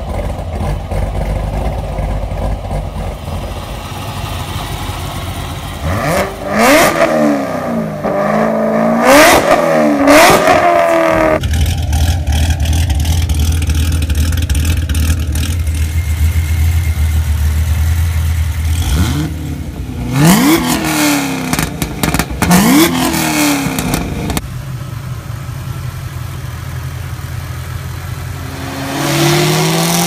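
Modified Chevrolet V8 engines with aftermarket exhausts, heard in several clips: a C7 Corvette idling, then blipped three times; a supercharged V8 idling with a deep steady rumble, then revved twice; then another idle that near the end climbs steadily in pitch under full throttle as a C6 Corvette makes a chassis-dyno pull.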